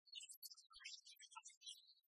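Near silence, with only faint scattered high-pitched blips.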